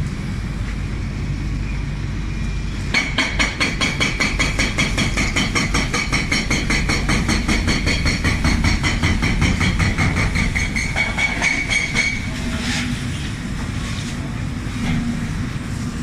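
Hidromek excavator's diesel engine running steadily. From about three seconds in until about twelve seconds, a fast, even metallic clatter with a high ringing tone runs over it, then stops.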